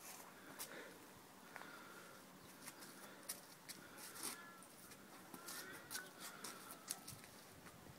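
Faint clicks and brief light squeaks from a folding wrought iron gate being swung and folded on its hinges.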